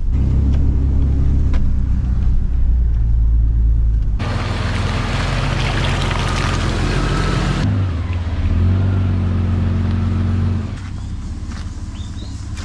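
Toyota LandCruiser engine running steadily at low revs while crawling over a rough, rocky 4WD track. In the middle comes a stretch of loud rushing noise over the engine, and near the end the engine fades to quieter outdoor sound.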